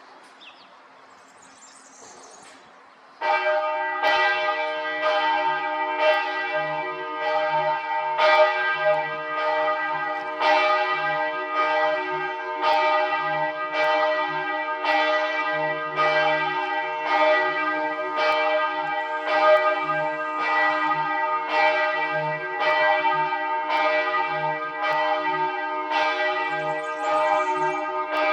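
Church bells ringing, starting suddenly about three seconds in: many bell tones sounding together, struck in a steady run of strokes.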